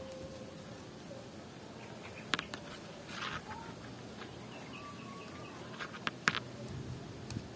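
Fresh palm leaf strips being folded and woven by hand: a few sharp crackles and snaps of the stiff leaf, and a brief rustle a few seconds in. Faint bird chirps sound in the background.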